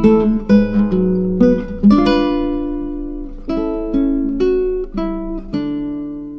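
Background music on acoustic guitar: plucked notes and chords, the last chord struck near the end and left ringing as it fades.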